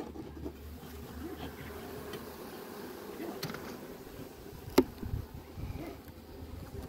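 Honeybees buzzing steadily in an opened hive box. A single sharp knock comes about five seconds in.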